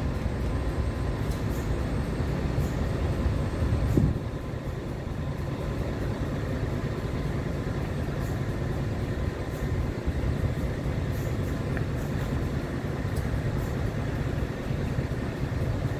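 Pacific National 93 class diesel locomotive 9321, with an NR class coupled behind, idling while standing still: a steady low rumble, with a single knock about four seconds in.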